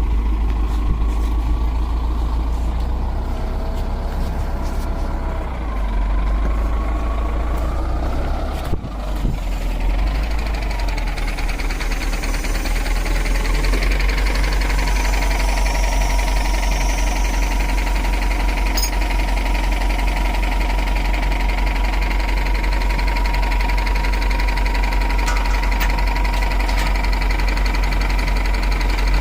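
Engine of a two-wheel hand tractor running steadily under load, with a brief dip in its sound about nine seconds in.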